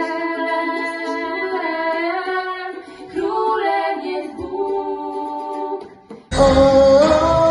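Girls singing a slow melody in long held notes, with ukulele accompaniment. About six seconds in, it cuts abruptly to a louder song: a girl singing over a recorded backing track with bass.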